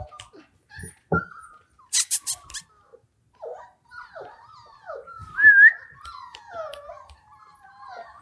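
German Shorthaired Pointer puppy whining in a series of short, high, wavering whimpers, mostly falling in pitch, with a quick run of sharp clicks about two seconds in.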